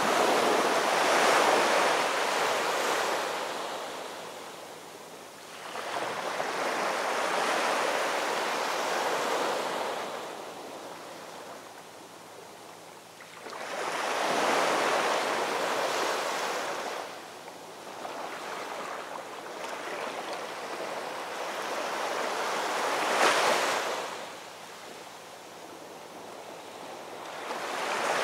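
Ocean surf: waves breaking and washing in as a hiss that swells and fades every five or six seconds.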